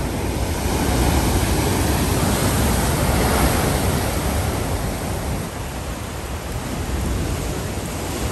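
Rough surf breaking on a rocky shore: a continuous rush of crashing waves that swells and eases as the breakers come in.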